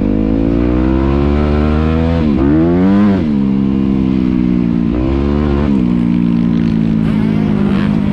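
Motocross bike engine heard from on board, pulling along a dirt track: the revs climb, dip sharply at a gear change and climb again, then fall away, rise and drop once more before holding steady.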